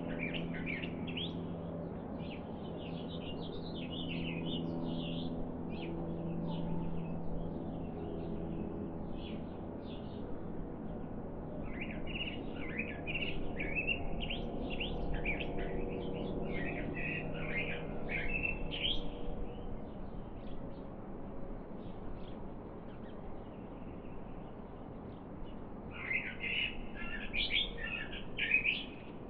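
Small songbirds chirping and twittering in quick bursts that come and go, busiest near the start, in the middle and near the end. A low steady hum runs underneath and is strongest in the first several seconds.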